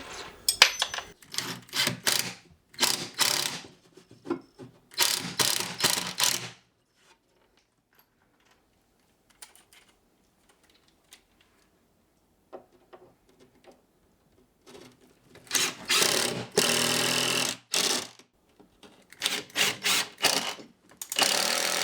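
Power driver driving screws to fix countertop support brackets, in repeated runs of half a second to a second and a half. There is a quiet stretch of several seconds in the middle.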